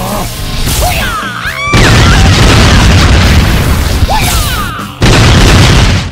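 A loud, long rumbling boom-like noise in two stretches, the second starting about five seconds in, with short whistling glides over it and music underneath.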